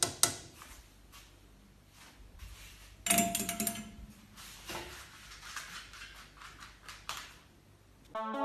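A metallic clatter with a short ringing tone about three seconds in, among scattered light clicks and knocks.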